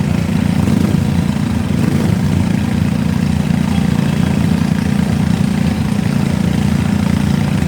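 Riding lawn mower engines running steadily, an unbroken low hum at an even loudness.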